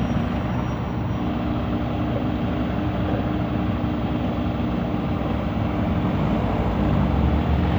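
Excavator's diesel engine running steadily, growing a little louder near the end.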